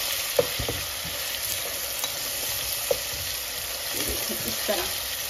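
Oil sizzling steadily as chopped onions, dill leaves and a crushed green chilli, coriander and garlic paste fry in a pot, the garlic being lightly fried. A spatula stirs through it, knocking against the pot a few times.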